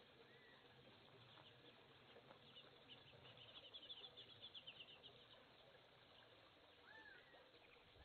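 Faint bird calls: a quick run of high chirps about halfway through, and a short slurred whistle near the start and another near the end.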